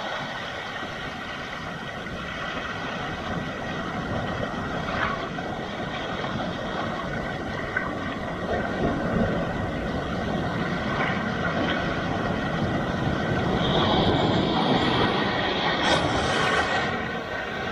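Sea waves breaking and washing over a rocky shoreline, a continuous rushing surf that swells slowly and is loudest near the end.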